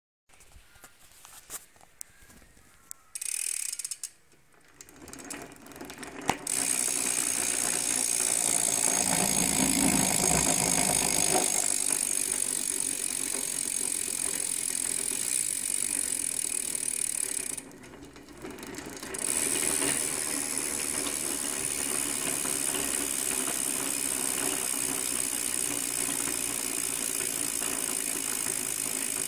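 Bicycle rear cassette hub (freehub) in stock, unmodified form, its pawls clicking in a fast continuous ratchet buzz as the wheel freewheels. A few separate clicks come first, and the buzz dips briefly a little past halfway.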